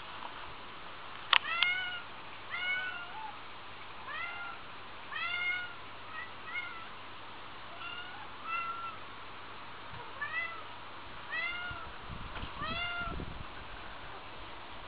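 Domestic cat meowing again and again: short, high, arched meows, roughly one every second. A sharp click sounds about a second and a half in, and a faint low rumble near the end.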